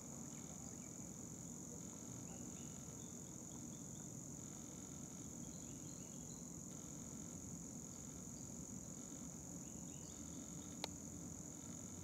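Insects making one steady, high-pitched drone over a low background rumble, with a few faint short chirps and a single sharp click near the end.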